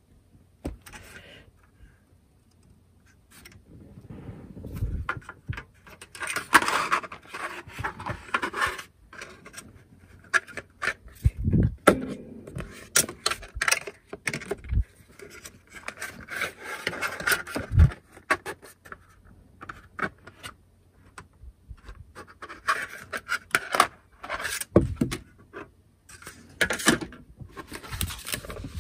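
Paper instruction sheets being handled, unfolded and flipped: irregular rustling and crinkling of paper in bursts, with a few dull knocks.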